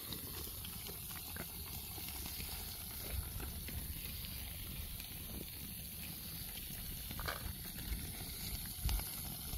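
Wood campfire burning in a metal fire ring, with scattered small crackles and pops over a low steady rumble.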